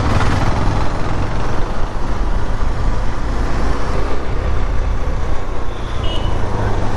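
Steady road and engine noise of a vehicle being driven through traffic, with a low rumble throughout.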